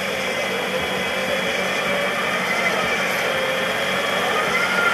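Off-road vehicle's winch whining under load as it hauls the 4x4 up a steep slope, over the vehicle's running engine. The whine is steady and wavers in pitch, rising near the end.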